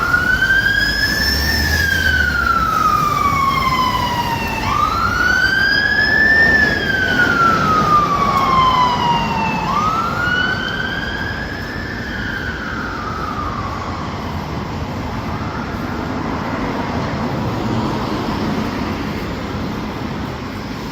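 Fire engine siren wailing: a slow rise and longer fall in pitch, repeated about every five seconds three times, then fading away under steady street traffic noise.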